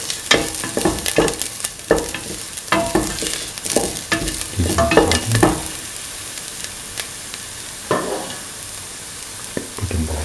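Chopped onion, ginger and garlic sizzling in oil in a stainless steel pan while being stirred, with quick scrapes and clicks of the stirring for about the first six seconds, then mostly a steady sizzle.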